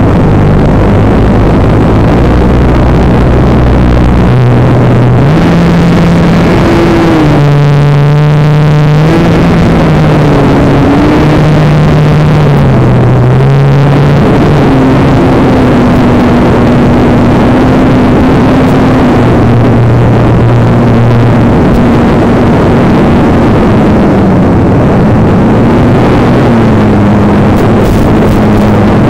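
A radio-controlled model Cessna's motor and propeller heard from on board, a loud rushing hiss with a steady hum over it. The hum's pitch steps and glides up and down as the throttle changes, dipping around the middle and then levelling off higher.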